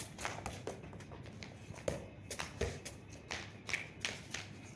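Scuffing footsteps and irregular light taps of a small child running and playing with a football on a concrete floor.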